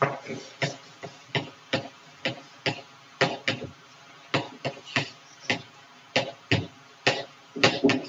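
Chalk writing on a blackboard: an irregular run of short, sharp taps and scrapes, about two or three a second.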